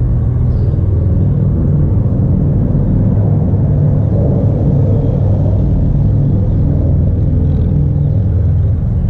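Road traffic on the highway bridge overhead: a steady low rumble of tyres and engines heard from beneath the concrete deck.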